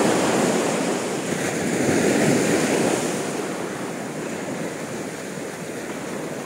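Sea waves breaking and washing up a sandy shore: a steady rushing surf that swells twice and eases off toward the end.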